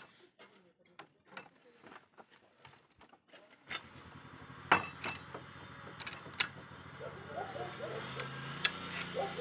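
Hand-lever cold-forging machine bending a steel bar around its scroll jig: scattered metal clicks, clanks and creaks. A steady low hum comes in about four seconds in.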